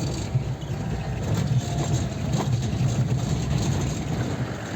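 Safari van's engine running steadily, a low drone heard from inside the cabin.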